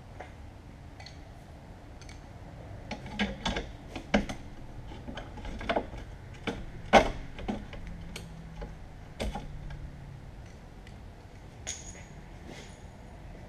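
Irregular sharp metallic taps and knocks of a hand tool striking a steel plate on a steel table, a dozen or so over about six seconds, the loudest about halfway through. A short ringing metal clink near the end.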